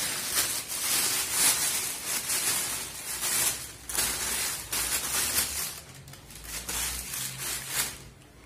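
A clear plastic bag rustling and crinkling in repeated bursts as a washing machine's inlet and outlet hoses are taken out of it, dying down near the end.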